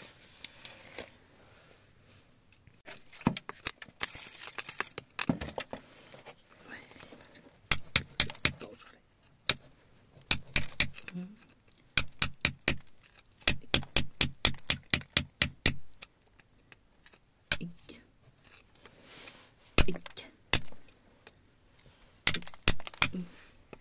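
A thin metal pick tapping and scraping at damp rock around embedded agate stones, in bursts of quick, sharp clicking taps with short pauses between them.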